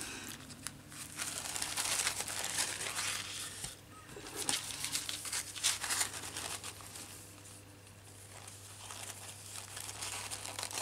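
Thin paper napkin rustling and crinkling as it is handled and folded by hand, in irregular bursts, with a quieter spell about three quarters of the way through.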